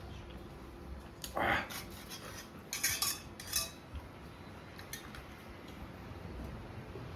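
Eating utensils scraping and clinking against a bowl: one scrape about a second and a half in, then a few sharp clinks around three seconds in.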